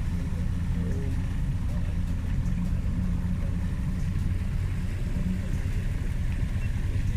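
A small fishing boat's motor running steadily as the boat gets under way, a low rumble with water rushing and splashing along the hull.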